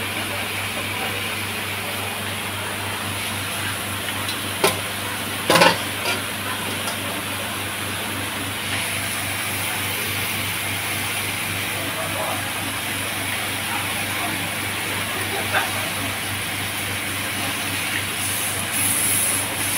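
Beef ribs sizzling on a hot cast-iron grill pan: a steady frying hiss over a low hum. A couple of sharp knocks come about five seconds in, and the sizzle briefly grows louder near the end as metal tongs move the meat.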